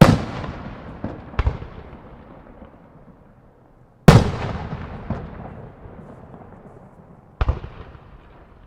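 Aerial firework shells bursting: two loud booms about four seconds apart, each followed by a smaller bang, with a long rolling echo fading after every report.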